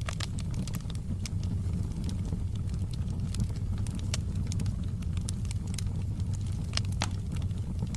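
Wood fire burning in a fireplace: a steady low roar from the flames with scattered sharp crackles and pops, a few louder ones about four and seven seconds in.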